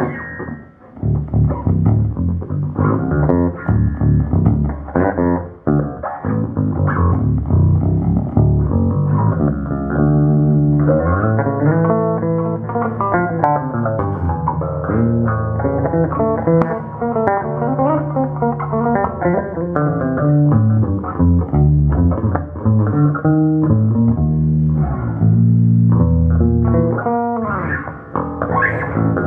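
Electric bass guitar played through a Gallien-Krueger 200MB 1×12 bass combo amplifier: a continuous run of plucked notes and bass lines, with short gaps about one second and five seconds in. It is a playing test of the amp after its power transistors were replaced.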